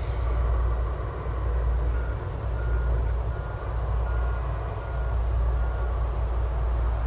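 A vehicle's backup alarm beeps six times at an even pace, a little over one beep a second, starting about two seconds in, over a steady low rumble.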